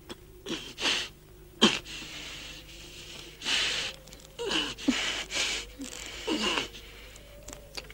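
A gagged man breathing hard through his nose in short, noisy bursts as he strains against the gag, with one sharper, louder burst about a second and a half in.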